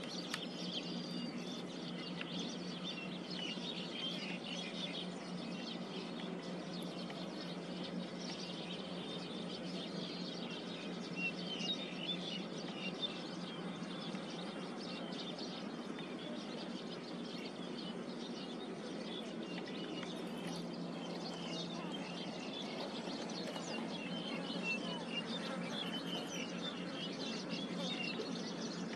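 Outdoor ambience: small birds chirping in short, scattered bursts over a steady background hiss and a low steady hum.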